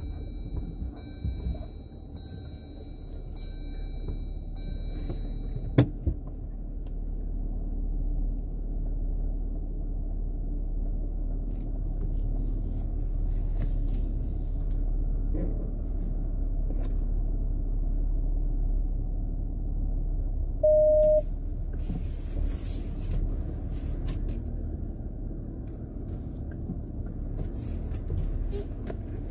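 Jeep Wrangler engine running with a steady low rumble as the vehicle moves off slowly. A sharp click comes about six seconds in, and a short beep about two-thirds of the way through.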